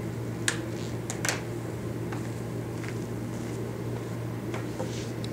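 Room tone: a steady low hum, with a few light clicks in the first second and a half and a couple more near the end.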